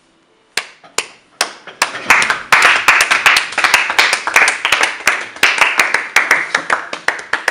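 A small group of people clapping. A few separate claps start it about half a second in, then it builds into steady applause from about two seconds in.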